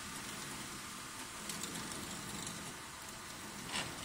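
Light metallic clicks and rattles as the carriage handwheel is turned to loosen it, with one sharper click near the end, over the steady hiss and hum of the switched-on machine.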